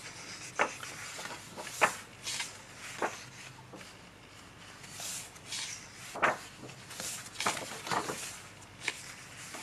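Pages of a paper colouring book being turned and smoothed down by hand: a series of short paper rustles and swishes, each a second or so apart.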